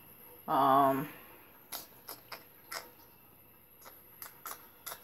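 A woman's short wordless vocal sound at one steady pitch, lasting about half a second, just after the start. It is followed by a scattering of faint, sharp, irregular clicks.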